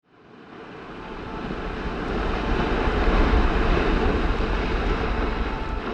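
A loud rushing rumble, deep and noisy, that swells up from silence to a peak about three seconds in and then slowly eases off.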